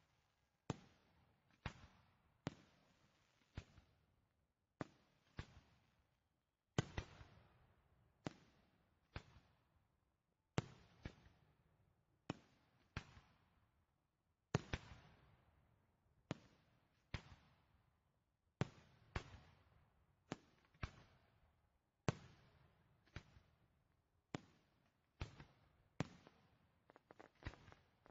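Fireworks shells bursting one after another, sharp bangs about once a second, some in quick pairs, each trailing off in a fading echo.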